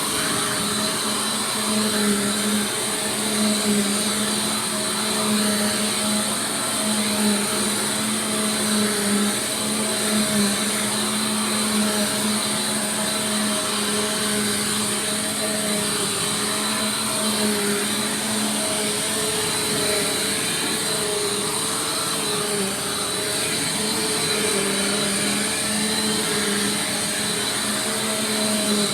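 Bissell Powerforce Compact Turbo upright vacuum cleaner running continuously, a steady motor hum with a high whine over rushing air, its tones wavering slightly and its loudness rising and falling a little.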